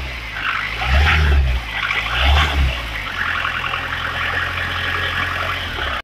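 Mahindra Thar CRDe's four-cylinder common-rail diesel engine, heard through the open bonnet, revved in two short blips and then settling to a steady idle.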